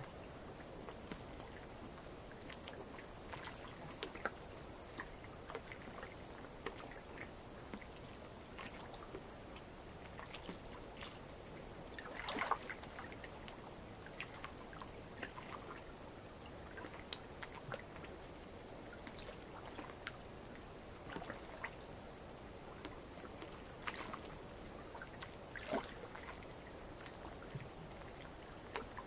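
Night insects trilling in a steady high-pitched chorus while light waves lap and splash against lava rock, with scattered small splashes and one louder splash near the middle.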